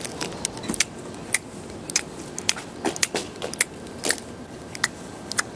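A string of sharp, uneven crackles and clicks: a Snickers bar being unwrapped and bitten into.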